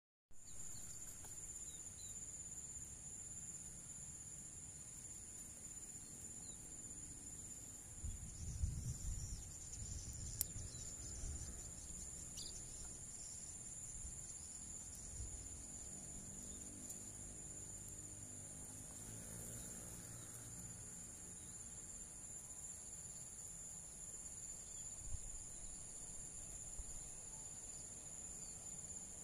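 Insects trilling continuously in two steady high pitches, with a few low thumps about eight to eleven seconds in.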